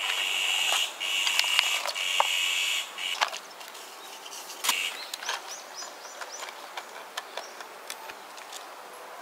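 An insect buzz, steady and high-pitched, in three pulses of under a second each, stopping about three seconds in. Then a few soft clicks and taps as a wooden spoon works rice in a metal pot and containers are handled.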